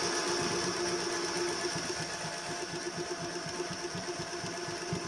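Electric embroidery machine stitching steadily with its motor turned down to a slow speed setting of 500. It makes an even motor hum with a fast, regular ticking of the needle.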